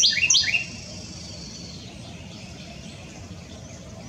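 Carolina wren singing: the last two repetitions of its loud rolling song phrase, about three per second, end about half a second in.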